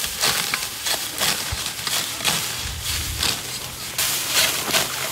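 Hand sickle cutting through dry, ripe wheat stalks: a run of crisp swishing crunches, about two a second, as handful after handful is grabbed and cut.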